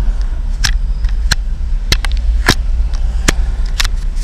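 Handling noise from a handheld camera being moved about inside a car: a steady low rumble with about six sharp clicks and knocks at irregular intervals.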